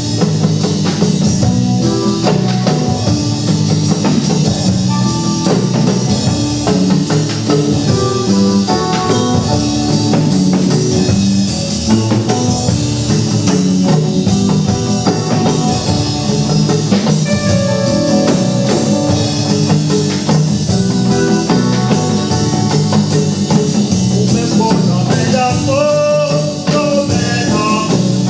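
Band music with drum kit and guitar playing at a steady beat.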